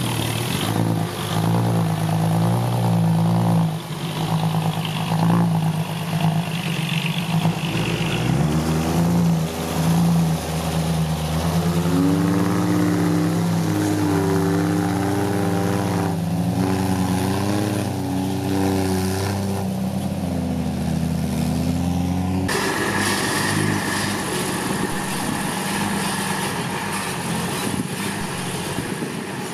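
Six-wheel dump truck's engine running and revving. Its note drops about 8 seconds in, rises and falls for several seconds, then changes abruptly to a steadier, slightly quieter running sound about 22 seconds in.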